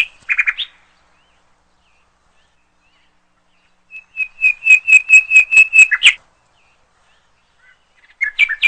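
Caged finches calling. There are a few short chirps at the start, then a quick run of about ten sharp, evenly spaced chirps lasting about two seconds around the middle, and more chirps near the end.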